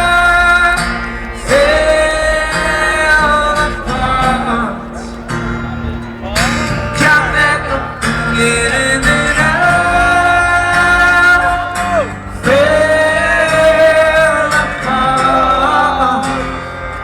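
Live acoustic rock song: long held sung notes over strummed acoustic guitar.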